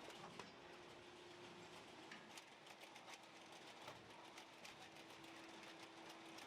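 Near silence: a faint steady hum with scattered light clicks.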